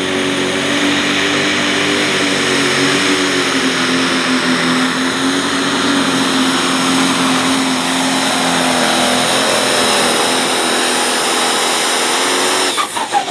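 Pro Stock diesel pulling tractor's engine at full power under load as it drags the weight sled down the track. Its pitch sags slightly over the run, and the engine cuts off abruptly near the end.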